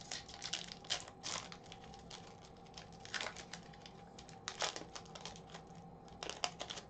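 Foil wrapper of a hockey card pack being torn open and crinkled by hand: sharp crackling rustles that come in bursts every second or two.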